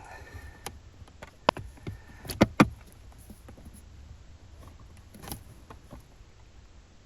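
Plastic dash and glovebox parts being handled and pushed back into place: a sharp click about one and a half seconds in, two louder knocks close together about a second later, and a softer one near five seconds.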